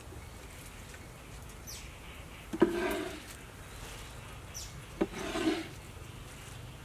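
Two sharp knocks on a wooden cutting board about two and a half seconds apart, each followed by a brief rustle as cut green onion pieces are gathered with a cleaver and set onto a plate.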